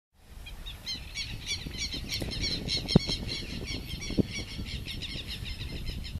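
Many small birds chirping in a dense, continuous chatter of short high notes, over a low wind rumble on the microphone. Two sharp knocks about three seconds and four seconds in, the first the loudest.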